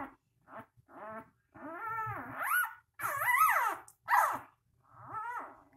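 Three-day-old newborn puppies whining and squealing: a run of high, wavering cries, some short and some drawn out for about a second.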